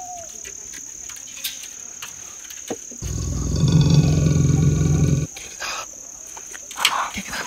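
A loud, low, growl-like rumble lasting about two seconds, midway through, which the trekkers first take for a leopard but which turns out to be a person asleep, snoring. A steady high buzz of crickets or other insects runs beneath it.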